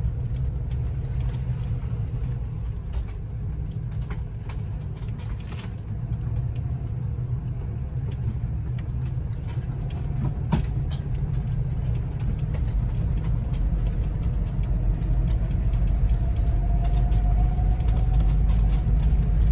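A vehicle driving along: steady low engine and road rumble, with a few light clicks and rattles, growing a little louder near the end as a faint whine rises in pitch.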